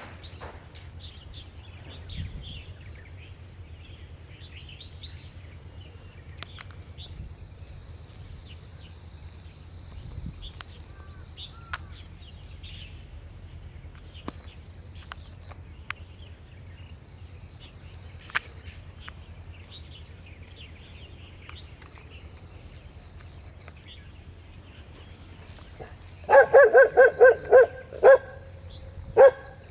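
Feral puppy barking: a rapid string of about seven high-pitched barks near the end, then two more, after a long quiet stretch of outdoor background with faint chirping.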